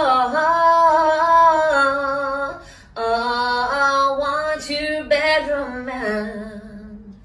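A woman singing unaccompanied in long, slightly wavering held notes: three phrases, the first breaking off after about two and a half seconds, the last on a lower note that fades away near the end.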